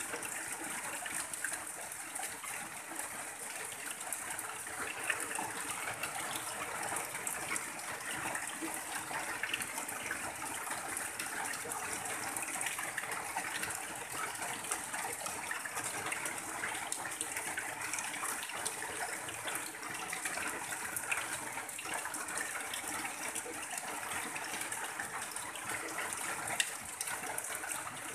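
Steady heavy rain on a tin roof, with runoff pouring off the roof edge in a continuous stream and scattered sharp drop ticks.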